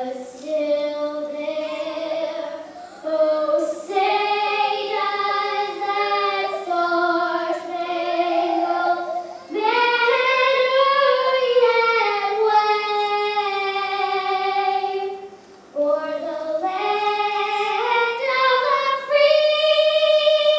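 A young girl singing the national anthem solo and unaccompanied into a handheld microphone, holding two long notes, one in the middle and one near the end.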